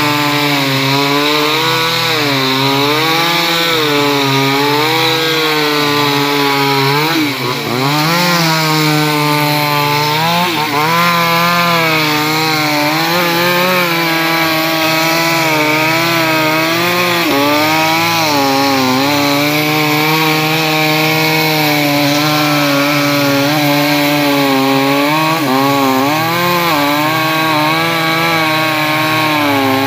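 Chainsaw engine running under load, cutting through teak wood. Its pitch wavers up and down as the chain bogs in the cut and recovers, with a deeper dip about seven seconds in.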